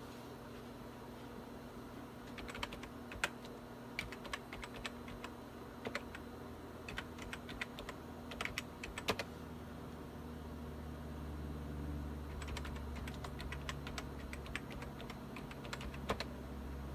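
Typing on a computer keyboard in two bursts, the first from about two and a half to nine seconds in and the second from about twelve and a half to sixteen seconds. A steady low hum runs underneath and grows louder about ten seconds in.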